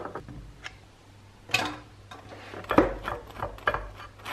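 A couple of light knocks of a knife on a plate, then in the second half a table knife scraping butter across toasted bread in quick repeated strokes.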